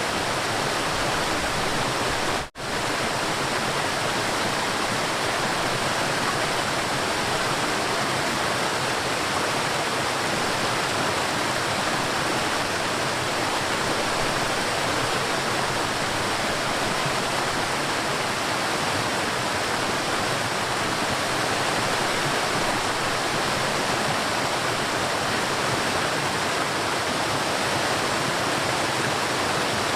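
River water flowing in a steady rush, with a momentary cut-out about two and a half seconds in.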